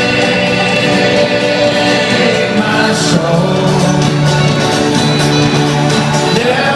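A live band playing, with several voices singing long held notes together.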